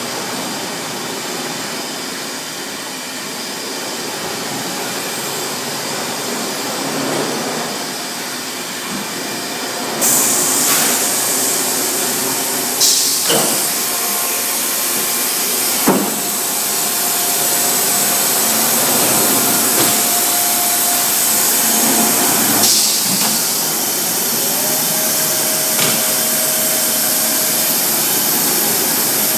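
Industrial laundry machinery of a Milnor continuous batch washer line running with a steady mechanical din. About ten seconds in, a loud hiss starts and keeps going, with a few sharp clanks and a faint steady whine over it.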